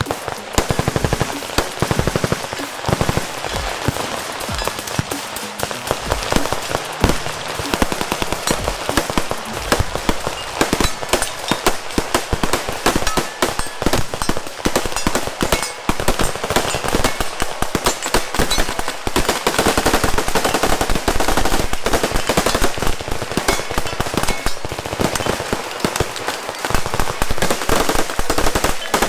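Massed gunfire from many guns firing at once along a firing line, a dense, nonstop crackle of overlapping shots.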